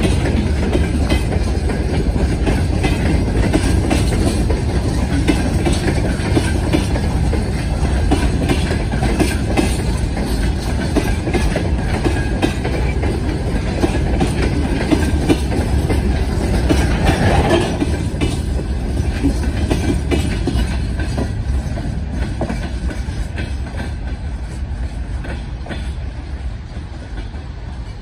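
Slow freight train of open-top gondola wagons rolling past, its wheels clicking steadily over the rail joints. The sound fades over the last several seconds as the end of the train draws away.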